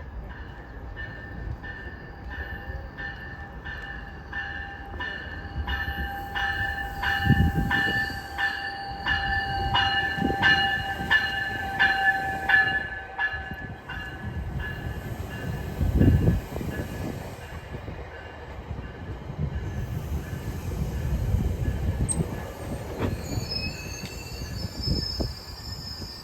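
GO Transit commuter train running through the station, with a bell ringing steadily about three times a second for roughly the first half, over the low rumble of the train. A high squeal comes in near the end.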